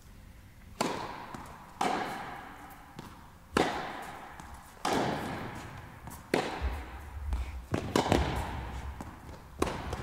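Tennis ball struck by rackets and bouncing on the court during a rally: about seven sharp pops, irregularly spaced a second or so apart, each echoing briefly in the indoor hall.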